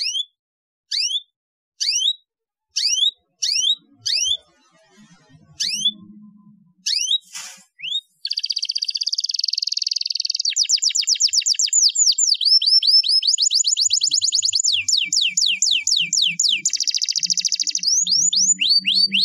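Domestic canary giving separate sweeping chirps about once a second, then from about eight seconds in breaking into continuous song: fast trills, buzzy rolls and rapid runs of repeated sweeping notes.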